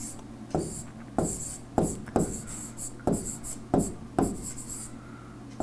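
Handwriting with a stylus on a tablet screen: about seven short, scratchy pen strokes, roughly one every half second, with a faint scratching between them.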